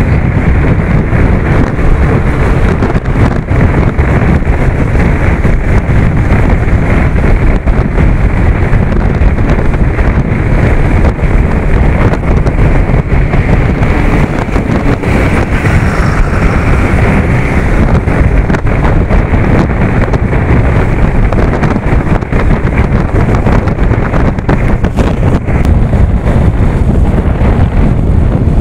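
Wind rushing and buffeting over the microphone of a moving motorcycle at road speed, with rumbling road noise underneath.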